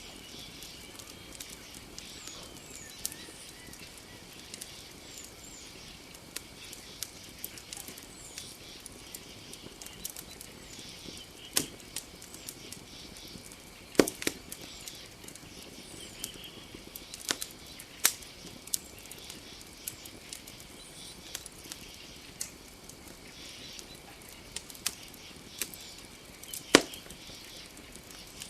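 Campfire crackling, with scattered sharp pops; the loudest come about halfway through, at about two-thirds, and near the end. Under it runs a steady high-pitched night chorus of nocturnal creatures.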